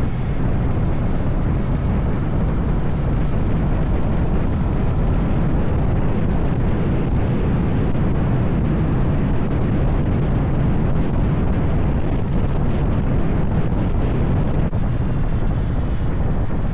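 Steady wind rushing over the microphone of a moving motorcycle, with engine and road noise underneath. The level holds even throughout.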